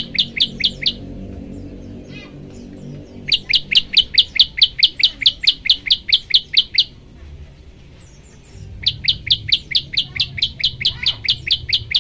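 Prenjak lumut song: rapid runs of sharp, evenly repeated chirps, about six a second, in three bursts a few seconds long, with faint chirps from other birds in the pauses.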